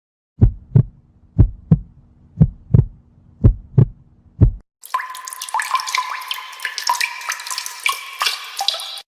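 Heartbeat sound effect: four double thumps, about one pair a second, over a faint steady hum. About five seconds in it gives way to a second effect, a dense run of rapid clicks and short pitched blips.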